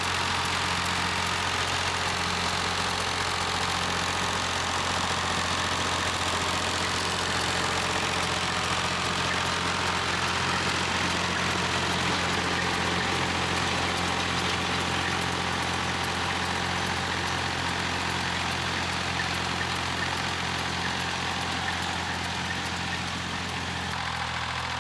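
Massey Ferguson 35 tractor engine running steadily, easing slightly near the end.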